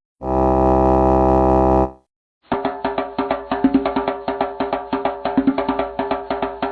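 Sound-effect clips: a steady, low buzzing tone for about two seconds, then after a short gap a fast, clicky electronic jingle with many rapid ticks over a held tone.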